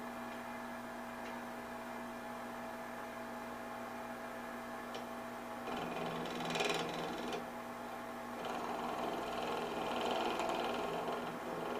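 Rikon 70-100 mini wood lathe's half-horsepower motor running with a steady hum, the blank spinning between centres. About six seconds in, briefly, and again from about eight and a half seconds on, a Mora knife held on the tool rest scrapes into the turning wood, a rough hiss over the hum.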